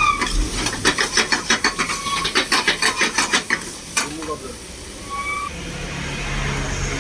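A spatula stirring and scraping food in a cooking pan with quick, even strokes, about five a second, for about three seconds, then a single sharp click. A few short high tones sound in between.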